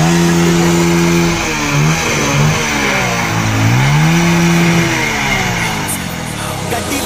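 A stationary motorcycle's engine being revved. It is held at high revs, drops, gets two quick blips, falls back toward idle, then is revved up and held again before falling away near the end.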